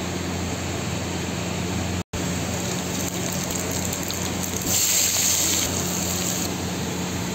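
Hot oil sizzling in a steel kadai as whole spices and then chopped onions go in, the sizzle turning to a much louder hiss for about two seconds near the middle, over a steady low background hum. The sound cuts out briefly about two seconds in.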